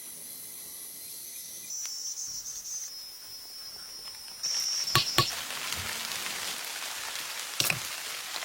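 Insects shrilling in high, steady tones that shift pitch a couple of times, over a hiss that comes in about halfway. Two sharp clicks come just after the middle and one more near the end.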